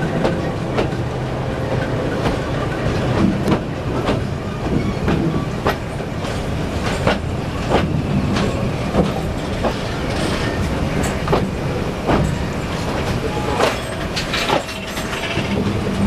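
Train wheels clattering over rail joints as a long rake of passenger coaches rolls past close by on the next track: an irregular run of sharp clicks over a steady rumble.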